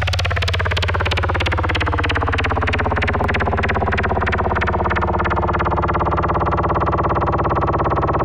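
Loud, distorted electronic drone music: a thick, low sustained tone with a fast buzzing pulse, its higher tones sliding downward over the first few seconds and then holding steady.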